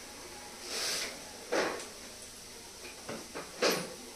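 Kitchen items being handled: a short rush of hissing noise about a second in, a knock half a second later, then a few small clicks and a sharper click near the end, like containers or a cupboard being moved.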